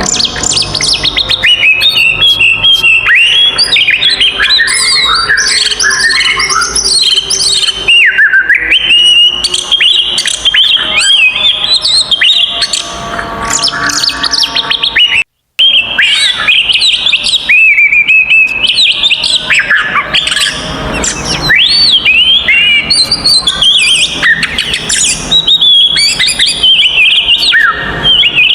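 Oriental magpie-robin singing a loud, continuous, varied song of quick whistled notes, glides and trills. The sound cuts out completely for a moment about halfway through.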